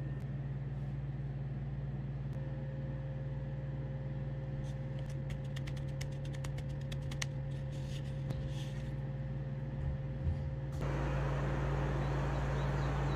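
A steady low hum, with a few faint light ticks in the middle. About eleven seconds in, a louder, wider hiss comes in.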